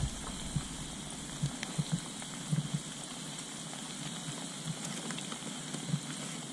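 Breaded crappie fillets deep-frying in hot oil in a steel pan: a steady sizzle with fine crackles, with a few soft low thumps scattered through.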